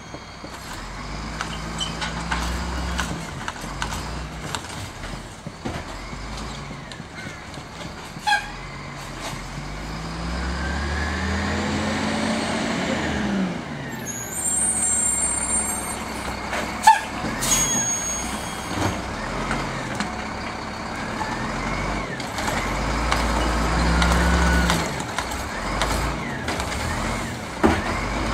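Diesel engine of a Volvo Xpeditor automated side-load garbage truck revving up and down as its Heil Rapid Rail arm lifts and dumps a recycling cart, then running as the truck pulls forward. A couple of short, sharp air-brake hisses cut through, the loudest about two-thirds of the way in.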